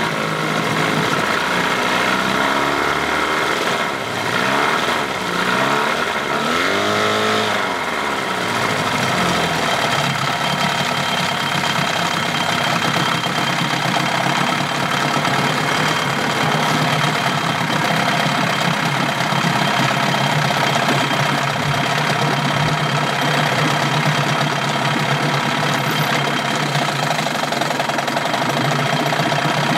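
Evinrude 15 hp outboard motor running, revved up and down a few times in the first several seconds, then held at a steady speed.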